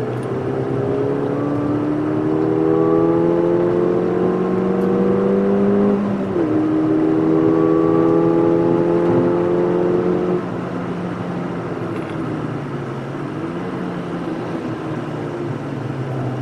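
Ford Fiesta ST Mk7's 1.6-litre turbocharged four-cylinder engine heard from inside the cabin, accelerating hard with its pitch climbing. About six seconds in it drops at an upshift, then climbs again. It eases off about ten seconds in and runs lower and steadier.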